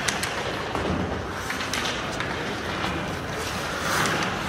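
Ice hockey arena during play: a steady wash of skates scraping on the ice and rink noise, with a few sharp knocks near the start and a swell of noise near the end.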